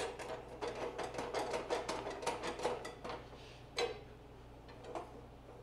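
Rapid metallic clicking and rattling for about three seconds, then two single clicks, as a rectangular steel tube is shifted and set in the vise of a portable metal-cutting bandsaw; the saw blade is not running.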